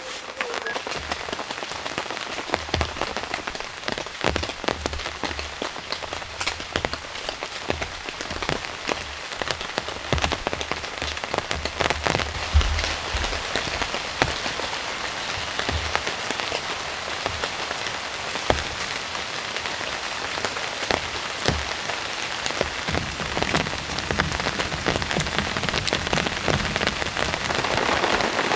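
Steady summer rain falling in a forest, with many separate drops striking close by as sharp ticks and occasional low thuds. It grows slightly louder near the end.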